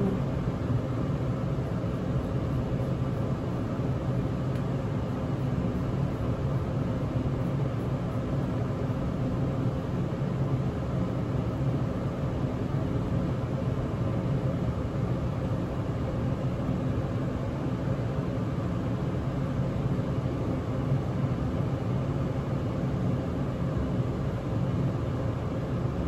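Steady mechanical hum with a hiss, unchanging throughout.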